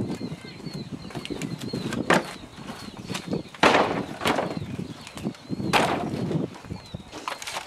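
Rustling with several sharp cracks and knocks as someone climbs among the branches and boards of a treehouse, while a small bird chirps quickly and repeatedly near the end.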